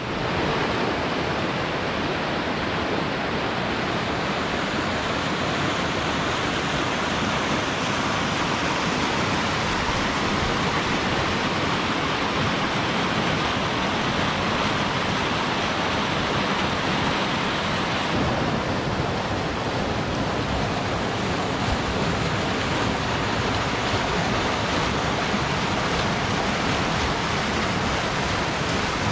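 Whitewater river rapids rushing steadily over boulders, a continuous loud hiss of water. The higher part of the hiss drops a little about eighteen seconds in.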